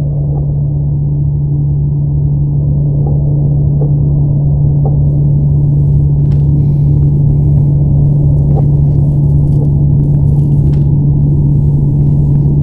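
A loud, steady low drone that swells slowly, muffled with no high end, with faint scattered clicks above it: an ambient drone from the film's score or sound design.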